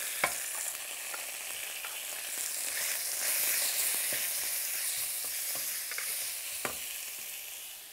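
Sliced beef sizzling in a hot wok while a wooden spatula stirs it, with a couple of sharp taps of the spatula against the pan. The sizzle swells a little in the middle and eases near the end.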